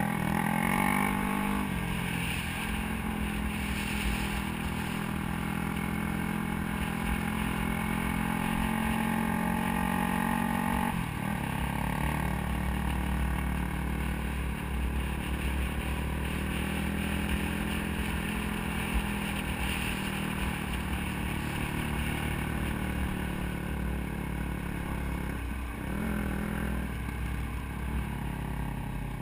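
Dirt bike engine running as the bike rides along a gravel road, with its note changing about two seconds in and again near eleven seconds.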